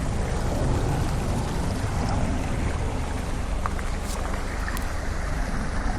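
Car driving slowly through a flooded ford: its engine running low under a steady wash of moving water.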